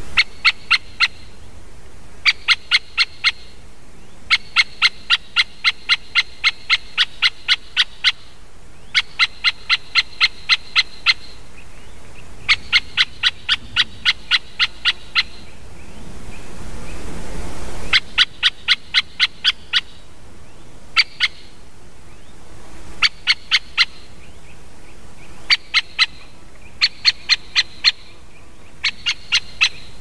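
Great spotted woodpecker giving sharp 'kik' calls in runs of about three a second, bout after bout with short pauses between. About halfway through, a brief rush of wind in the trees.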